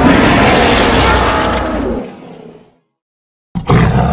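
Loud monster roar sound effect that fades away about two seconds in. After a moment of silence, a second roar begins near the end.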